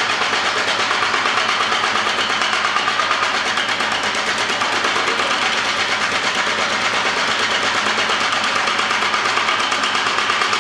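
Homemade power hammer on its test run, hammering steadily in a fast, even rhythm of many blows a second.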